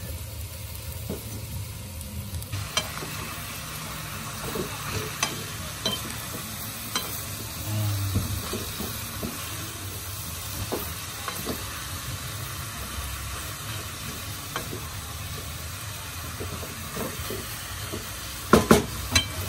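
Shredded banana heart frying in a non-stick pan, sizzling, while a wooden spatula stirs and scrapes through it with scattered clicks against the pan. A few sharp knocks come near the end.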